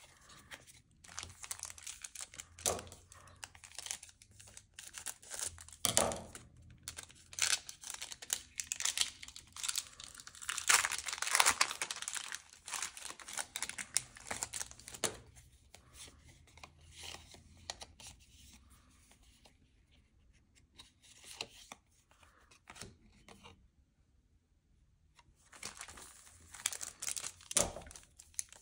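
Foil wrapper of a Pokémon trading card booster pack being torn open and crinkled in the hands, in irregular bursts of rustling that are loudest around the middle.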